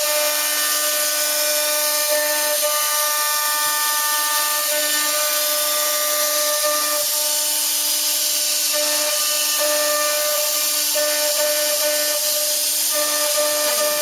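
Woodworking CNC router engraving wood: the spindle's steady whine over the hiss of the bit cutting.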